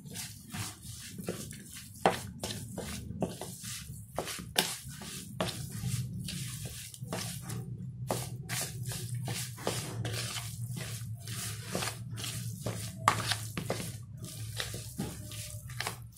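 A hand squishing and kneading seasoned raw minced pork in a plastic bowl: irregular wet squelches and slaps as the marinade is worked into the meat. A low steady hum runs underneath.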